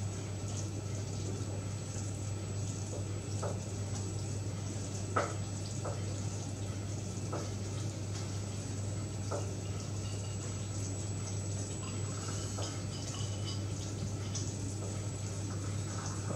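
A pot of Scottish tablet mixture of sugar and condensed milk bubbling on the boil as it is stirred with a spoon, heading up to 118 °C, the soft-ball stage. A steady low hum runs underneath, with a few light clicks in the first half.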